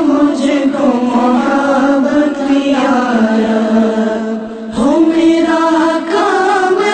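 Devotional prayer (dua) sung by a voice in long held, gliding notes, with a short break about two-thirds of the way through.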